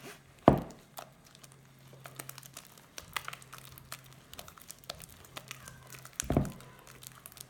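Sticky slime of glue, shaving cream and cream being stirred in a bowl: a run of small sharp clicks and crackles, with two louder thumps about half a second in and near the end.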